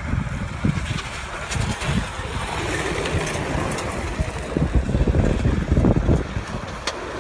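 Mitsubishi Galant Fortis dirt-trial car with a naturally aspirated engine running hard as it slides past on a loose dirt course, its tyres spraying dirt and gravel, louder as it passes close about halfway through. Wind buffets the microphone throughout, with a few sharp clicks.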